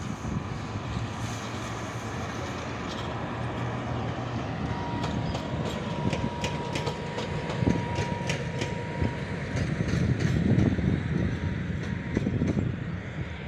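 PKP Cargo ET22 electric locomotive running light past: a low rumble with its wheels clicking over rail joints and points, and a steady whine for a few seconds in the middle.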